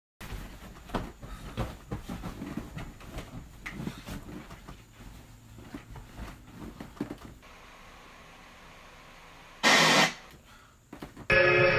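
Bedclothes rustling with soft knocks and thumps as a person moves about in bed. Just under ten seconds in comes a loud half-second burst of TV static hiss.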